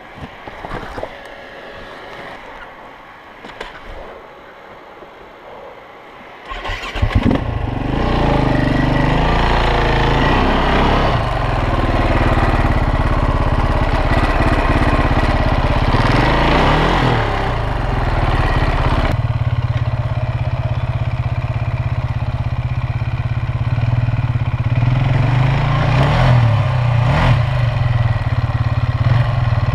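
KTM 450 EXC single-cylinder four-stroke enduro engine starting about six seconds in after a few faint clicks. It then runs, revved up and down several times, with a steadier idle through the second half.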